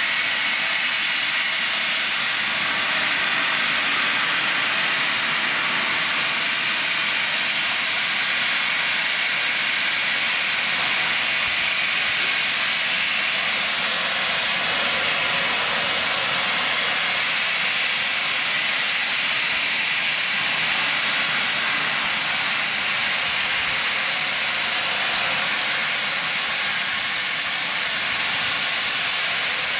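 Steam locomotive at a standstill with steam escaping in a steady, unbroken hiss, without the beat of exhaust chuffs.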